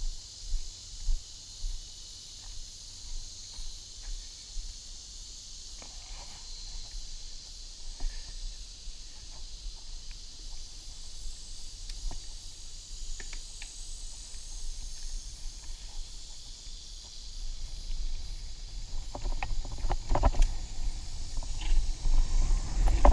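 Mountain bike rolling over a sandy dirt singletrack: a low rumble of tyres with scattered clicks and rattles from the bike. These get busier and louder over the last few seconds, all under a steady high buzz of insects.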